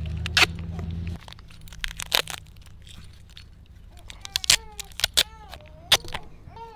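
Duct tape being pulled off the roll and torn, in several sharp crackling rips. A low rumble stops about a second in, and short meow-like animal calls come several times in the second half.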